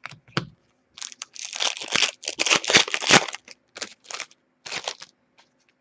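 Trading cards and their foil pack wrapper being handled, rustling and crinkling in a run of short bursts for about four seconds.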